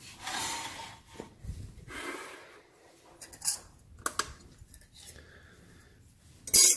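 Hands handling things on a steel welding table: scraping and rustling, a few short clicks as a digital kitchen scale's button is pressed, then a sharp clink near the end as a thin sheet-steel piece is set down on the scale's glass top.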